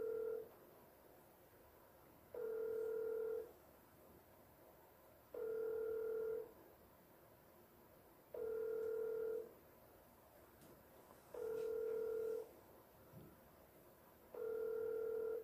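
Outgoing-call ringback tone from a smartphone on speaker: a steady low beep about a second long, repeating every three seconds, six times. The call is ringing out unanswered.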